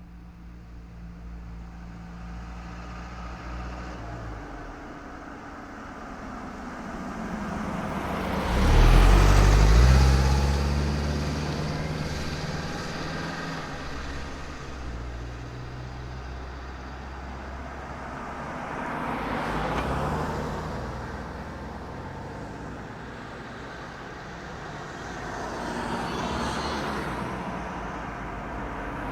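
Road traffic: motor vehicles passing by one after another over a steady low engine hum. The loudest pass, a deep engine note, comes about nine seconds in, with lighter passes near twenty and twenty-six seconds.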